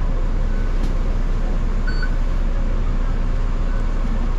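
Steady engine and air-conditioning drone inside a running city bus, with a few short electronic beeps.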